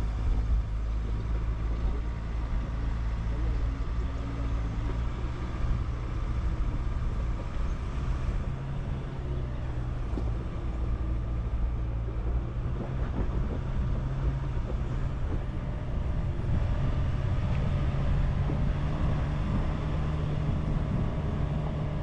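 Ford Ranger Raptor's 2.0-litre bi-turbo diesel engine running steadily as the truck drives over a rocky gravel track, with a heavy low rumble of wind and road noise. The engine note rises a little about two-thirds of the way through and stays higher.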